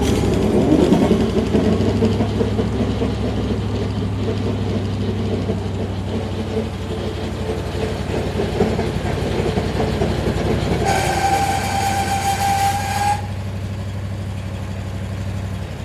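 A new car running with a steady low engine hum; about eleven seconds in, a steady high-pitched tone with overtones sounds for about two seconds and cuts off. This is the noise the owner calls an abnormal noise (異音).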